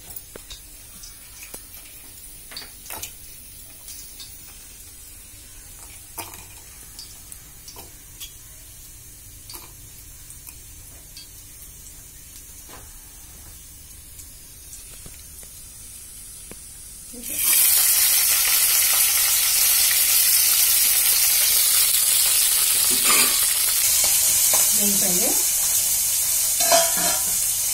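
Scattered light clicks of utensils, then about two-thirds of the way through a sudden loud sizzle as chana dal, urad dal, cumin seeds and green chillies hit hot oil in a kadai, frying steadily from then on.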